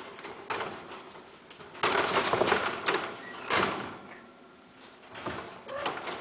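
Scuffling and clattering inside a wire pet cage with a plastic base as long-haired cats move about, with irregular knocks and rattles and a louder stretch of clatter about two seconds in.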